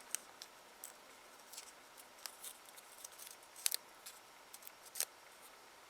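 Faint, irregular small clicks and taps from handling nail-art tools and pieces at a work table, about ten in all, with the loudest a quick double click a little before the end.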